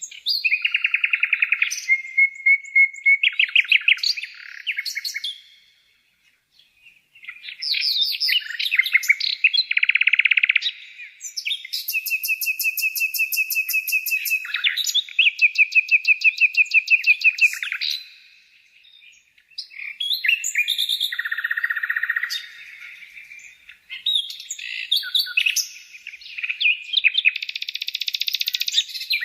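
A songbird singing a long, varied song of fast trills and rapidly repeated high notes, in phrases broken by short pauses at about six seconds and about nineteen seconds in.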